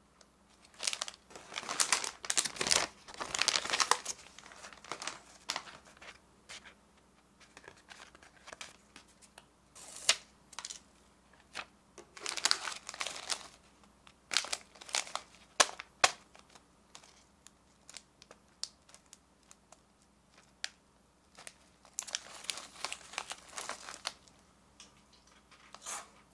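Plastic snack wrappers crinkling as the packets are handled and shuffled, in irregular bursts of rustling and crackling with short pauses between.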